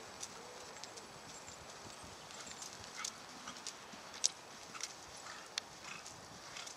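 Horse cantering on an arena surface: its hoofbeats come through as scattered, irregular faint clicks over a soft background hiss.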